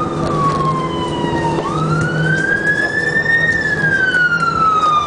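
Emergency vehicle siren sounding a slow wail. Its pitch falls, turns and climbs again about a second and a half in, then starts falling once more about three and a half seconds in, over a steady low hum.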